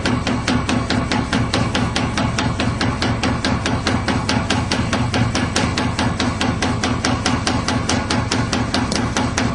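A machine running with a rapid, even knocking of about six strikes a second over a steady low hum.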